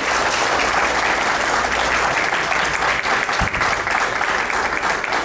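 Audience clapping steadily and densely: a room full of applause.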